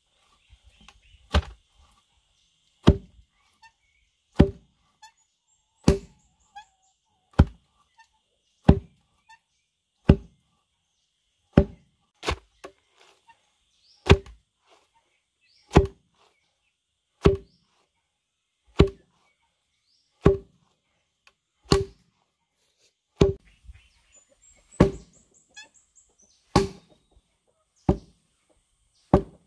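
Foot-operated lever pestle pounding chopped stalks in a hollowed wooden log mortar: a heavy wooden thud about every one and a half seconds, each followed by a lighter knock as the beam rocks back.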